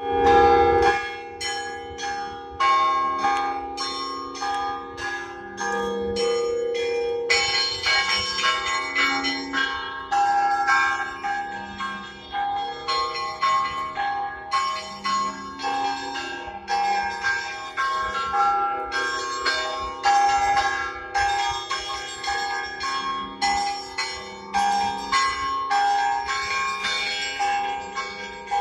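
Russian Orthodox church bells rung in the traditional zvon: small high bells struck in a rapid, busy pattern over a deeper bell sounding about every second and a half. It opens with one loud strike, and the small bells grow denser about eight seconds in.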